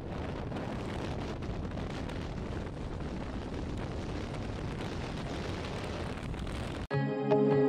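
Wind rushing and buffeting over the microphone on a moving motorcycle, a steady roar of wind and road noise. It cuts off suddenly near the end, when music begins.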